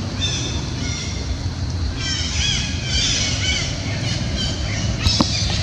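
A run of short, arched high-pitched animal calls, several overlapping, over a steady low rumble, fading out about four and a half seconds in; a few sharp clicks near the end.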